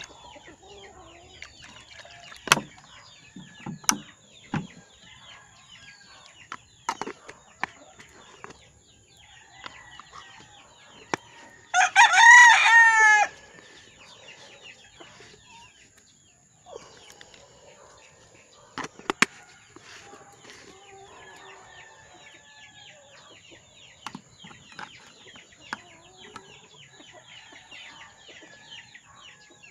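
Young chicks peeping without pause in short falling chirps. A rooster crows once, loudly, a little before halfway through. A few sharp knocks come from glass jar waterers and their plastic bases being handled.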